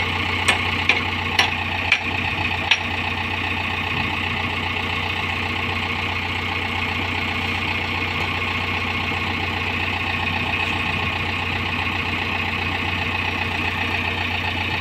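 A backhoe loader's diesel engine idling steadily, with five sharp knocks in the first three seconds.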